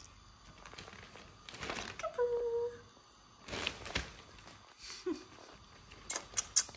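Shopping bag rustling and crinkling in three short bursts as a hand plays with a kitten inside it. A brief steady pitched sound comes about two seconds in.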